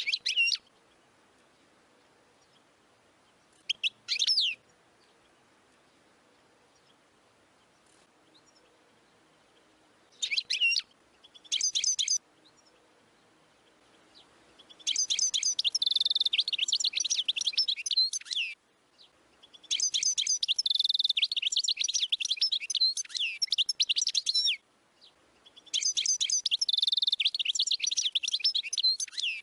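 A European goldfinch singing: a few short high calls in the first half, then three long runs of fast, high, rapidly changing notes, each several seconds long.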